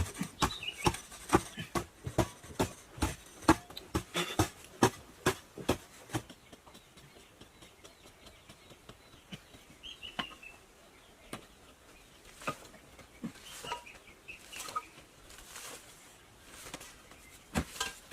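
A fast run of sharp knocks, about three a second, that stops about six seconds in and gives way to occasional single taps, with a few short high chirps.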